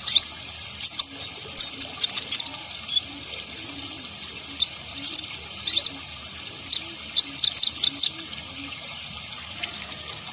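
Kolibri ninja sunbird singing: clusters of sharp, high chirps and short trills, sparser near the end, over a steady hiss like running water.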